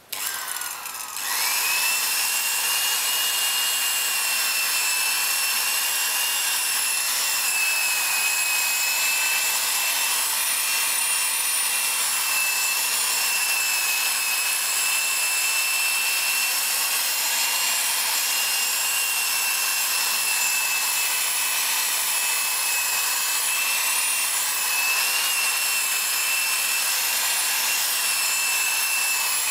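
Corded electric drill spinning a felt buffing wheel, with a steady high whine that rises as it speeds up over the first second or two. The wheel rubs polishing compound over a lacquered wooden car-interior trim panel, buffing it to a gloss.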